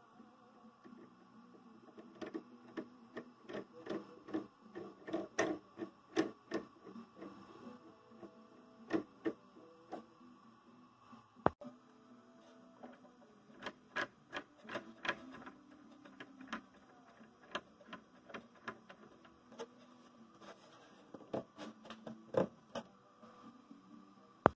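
Irregular sharp clicks and light metallic taps over a steady low electrical hum from a homemade CNC lathe setup.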